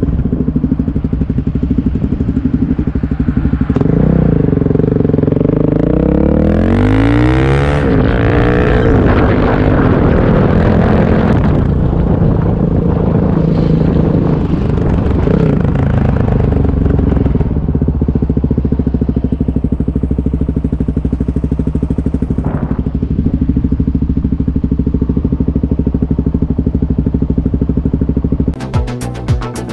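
2020 Suzuki DR-Z400S single-cylinder four-stroke running through an MRD Z-Pro exhaust with the quiet baffle fitted. It beats steadily at first, then pulls away with rising revs about four seconds in, runs along under way, and settles back to a steady low beat in its second half.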